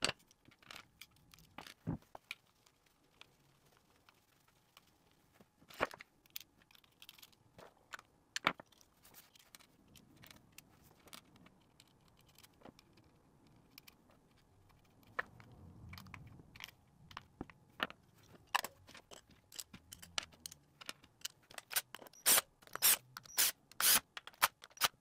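Scattered light clicks, taps and scrapes of a guitar overdrive pedal being reassembled by hand, with parts, nuts and screws handled against its aluminium enclosure. The clicks come thick and fast near the end.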